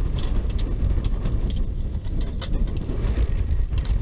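Wind buffeting the microphone: a steady low rumble, with faint scattered small ticks.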